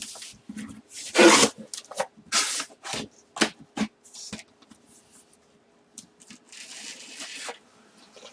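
Cardboard box and packing material being handled and pulled open: irregular rubbing, rasping and scraping with a few knocks, loudest about a second in, over a faint steady hum.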